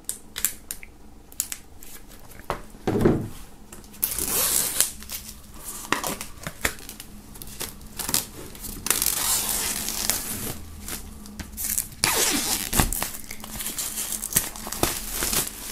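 Plastic shrink-wrap being slit open and peeled off a gatefold vinyl record sleeve: crinkling and tearing in several stretches, with scattered small clicks.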